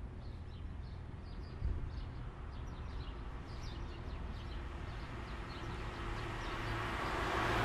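Outdoor street ambience: small birds chirping over a low rumble of traffic. A vehicle grows louder toward the end.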